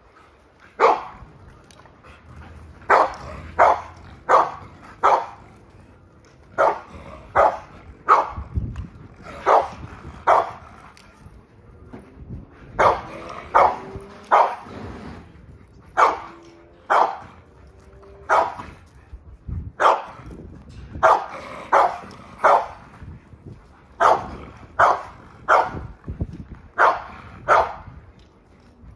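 A dog barking over and over, in quick runs of two to four barks with short pauses between them.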